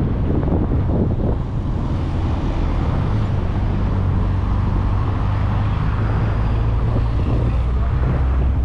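A 1994 VW Gol with a 1.6 L CHT engine driving at highway speed, heard from a camera mounted outside the car: a steady low engine hum under tyre and road noise. Wind buffets the microphone near the start and again near the end.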